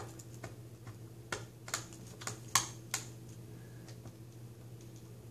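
A handful of light, sharp clicks and taps, bunched in the middle, from fingers handling small screws and pressing on the plastic screen bezel of an HP Envy dv6 laptop.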